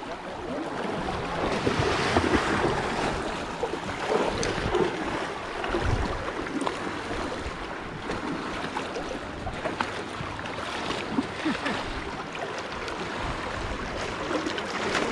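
Fast river current rushing and gurgling around waders standing in the water, with wind buffeting the microphone.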